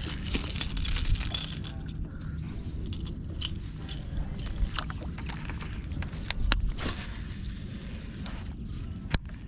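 Wind and water noise around a small fishing boat, with light clicks and rattles of fishing tackle and one sharp click near the end.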